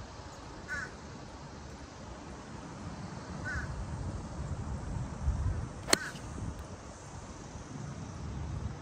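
A single sharp click of a 6-iron striking a golf ball off the tee, about six seconds in. A crow caws twice before the shot.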